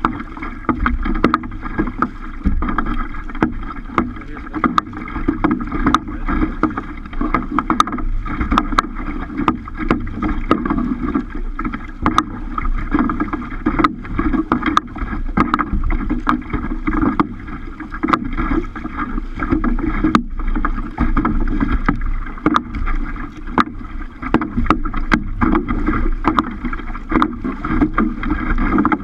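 Small waves slapping and splashing against a plastic kayak's bow as it moves through choppy water: a steady wash of water broken by frequent sharp slaps.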